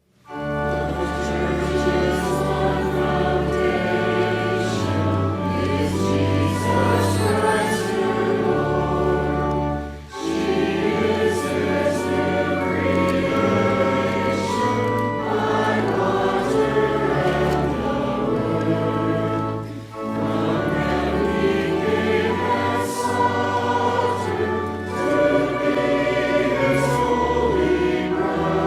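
A choir singing a hymn over sustained low accompaniment, in long phrases with short breaks about ten and twenty seconds in.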